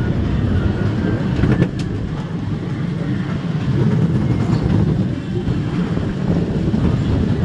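Dark-ride car rumbling steadily along its rail track, heard from on board, with a couple of sharp knocks about a second and a half in.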